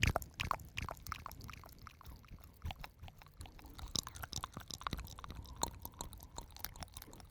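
Close-miked ASMR wet mouth sounds: a dense, irregular run of moist clicks, smacks and squelches.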